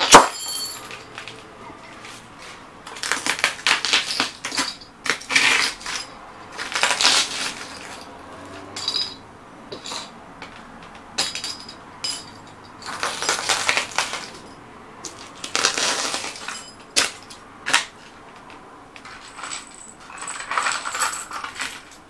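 Vintage radio vacuum tubes being crushed under cowboy boots on a concrete floor: a sharp crack right at the start, then repeated spells of glass crunching and crackling as the boots stamp on the tubes and their broken glass.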